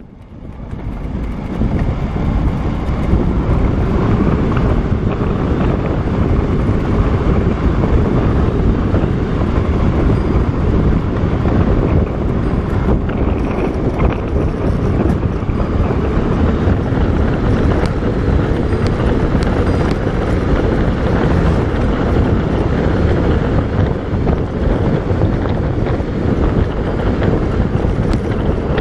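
Wind rushing over a handlebar-mounted camera's microphone as a bicycle coasts fast downhill: a steady, heavy rumbling rush. It fades in over the first couple of seconds.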